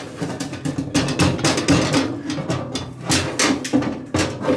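Cast-iron Dutch oven lid clanking on a metal lid lifter as it is shaken and knocked to throw off its ash and coals: a rapid, irregular run of sharp metallic knocks.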